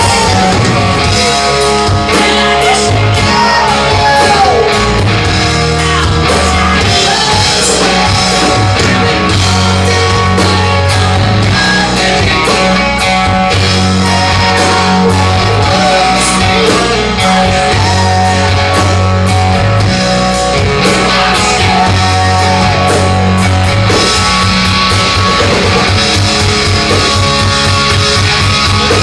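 Hard rock band playing live, with distorted electric guitar, bass and drums. A fast run of low drum beats comes in over the last few seconds.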